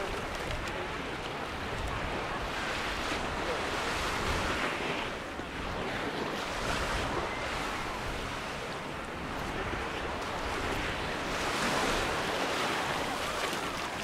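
Small sea waves breaking and washing up a sandy shore, the wash swelling and easing every few seconds, with wind rumbling on the microphone.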